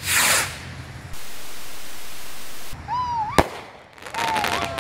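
Skymaster sky rocket launching with a short whoosh, then a single sharp bang about three and a half seconds in as it bursts, followed by a rapid crackle of popping stars near the end.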